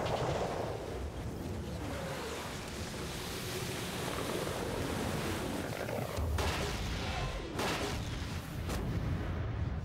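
Film sound effect of a huge wave slamming into a cruise ship: a continuous rushing of water over a deep rumble, with heavier crashes about six and a half and seven and a half seconds in.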